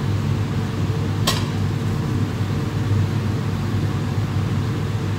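Steady low hum of commercial kitchen ventilation running, such as the extractor hood fan. A single sharp click sounds about a second in.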